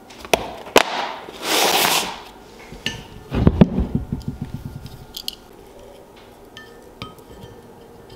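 Clicks from a dial caliper's hinged plastic case being handled and snapped shut, a brief swish, then a loud clatter of hard knocks on the wooden workbench that quickly dies away as an object is set down and settles. Faint light ticks follow as the caliper is handled.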